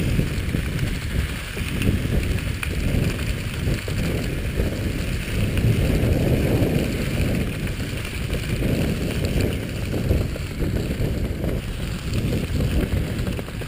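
Wind buffeting the camera microphone as a skier is towed along at speed, with a steady hiss of skis gliding over packed snow.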